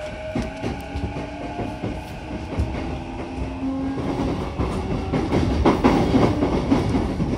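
Inside an E233-7000 series electric train car under way: the traction motor and inverter hum as steady tones that rise slightly, over the rumble of the wheels on the rails. From about halfway in the running noise grows louder and the wheels clatter over rail joints.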